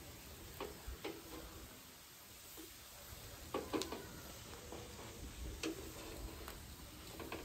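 Metal kebab skewers clinking against each other and against the grill's edge as they are handled and turned over charcoal: a dozen or so sharp, irregular clicks, a few with a short metallic ring, the loudest cluster a little past the middle, over a faint steady hiss.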